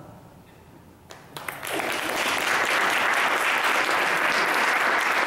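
Audience applauding: a few scattered claps about a second in, building quickly into steady clapping.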